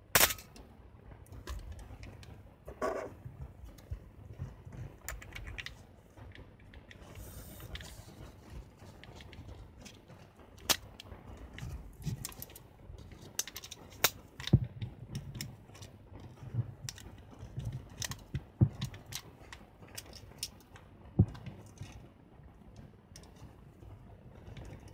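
Scattered sharp clicks and rustling handling noise from a Canon A-1 35 mm film SLR being loaded with a film cartridge, with the loudest click right at the start and a run of clicks later on.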